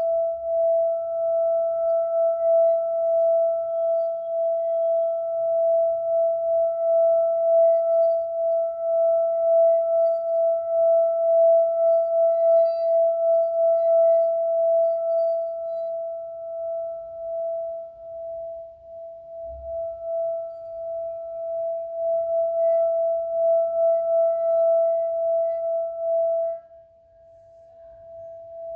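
Singing bowl sustaining one steady, wavering ringing tone with a fainter higher overtone. The tone drops off suddenly near the end and comes back softer.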